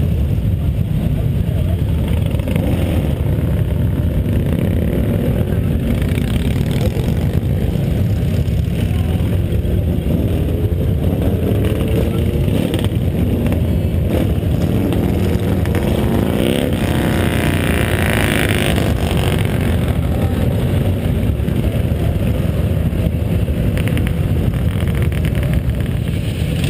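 Motorcycle engines running as a stream of bikes rides past, a continuous low rumble. Around two-thirds of the way through, one engine sweeps up and down in pitch as it goes by.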